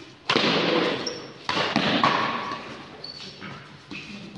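Badminton rally on an indoor court: two loud racket strikes on the shuttlecock about a second apart, each ringing out in the hall, followed by a few short high squeaks of court shoes on the floor.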